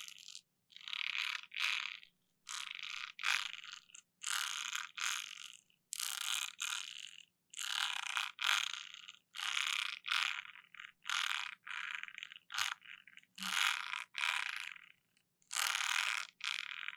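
ASMR 'ear flossing': floss drawn across the microphone in a run of short rasping scrapes, roughly one a second, with brief silences between strokes.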